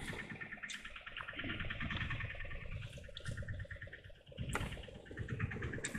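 Large saltwater spinning reel being cranked under load while playing a hooked fish, its gears giving a fast, even ticking whirr, with a few sharp knocks against the rod and boat.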